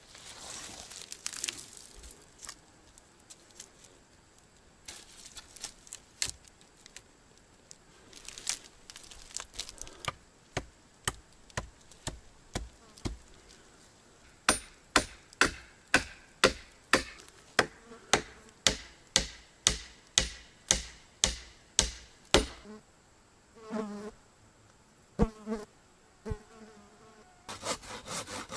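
Blows on wood at the shelter's stake wall: scattered knocks at first, then a steady run of sharp knocks, about two a second, from about ten seconds in until about twenty-two seconds. A fly buzzes close by, most plainly near the end.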